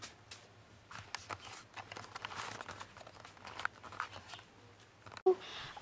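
Faint handling noise: scattered light clicks and rustling as a handheld camera is moved about, over a low steady hum. Near the end there is an abrupt break followed by a brief voice sound.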